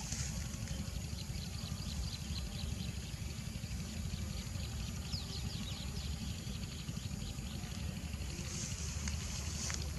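Wind buffeting an outdoor microphone: a steady, fluttering low rumble, with faint high chirps now and then.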